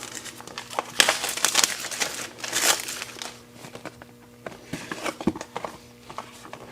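Product packaging being opened by hand: crinkling and rustling in two bursts over the first three seconds, then quieter clicks and taps of handling.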